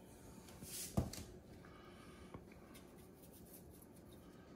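Quiet kitchen handling sounds: one sharp tap about a second in, a fainter tick a little past halfway, and light scraping and rustling between them.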